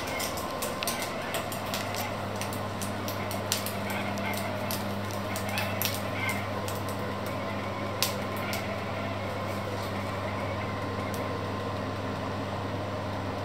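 An induction hob is running under an enamelled cast-iron pot, giving a steady low hum over a constant hiss. Scattered light clicks come through the first half and then stop.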